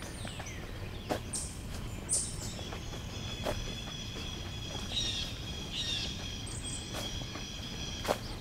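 Songbirds chirping and whistling high, with a sustained high whistled song through the middle, over a steady hiss of outdoor background noise. A few sharp clicks are scattered through it.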